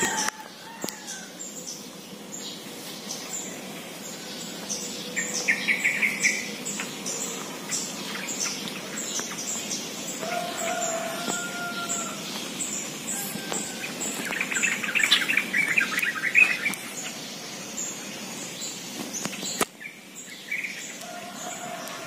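A flock of yellow-vented bulbuls calling from a treetop, with two bouts of bubbly chattering, about five and fifteen seconds in, and a few short whistled notes. A high chirp repeats about twice a second throughout.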